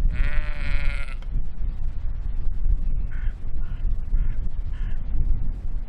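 A sheep bleats once, a single long wavering bleat in the first second, over a steady low rumble of wind on the microphone. About halfway through come four faint short calls.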